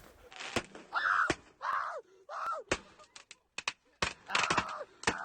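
Consumer fireworks going off in quick succession, sharp bangs and crackles about every half second, with several short high cries that rise and fall between them.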